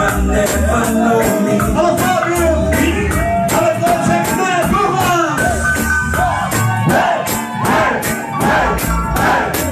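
Reggae song playing loud over a sound system: a sung vocal line over a steady drum beat and heavy bass.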